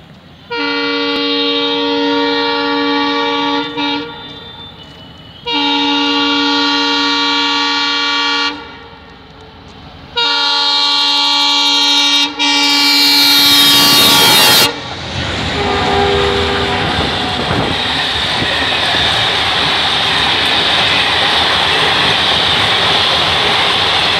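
Alco diesel locomotive horn sounding three long blasts, the last the longest. Then the triple-headed Alco diesel locomotives and their coaches run past, a loud steady noise of engines and wheels on rail.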